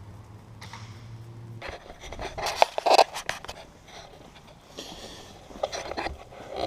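Knocks and scraping from parts being handled during exhaust work, in two bouts: about two seconds in and again near the end. A steady low hum stops after about a second and a half.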